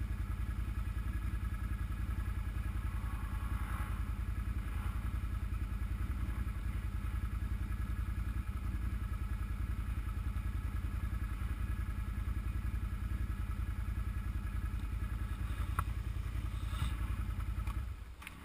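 ATV engine idling steadily, then shut off just before the end.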